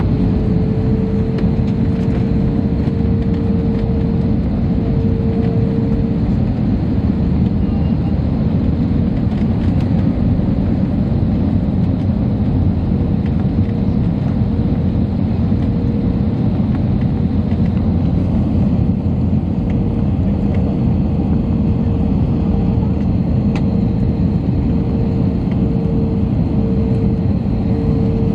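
Airliner cabin noise at a window seat over the wing on approach: the engines and rushing air make a loud, steady noise, with a constant hum near one pitch running through it.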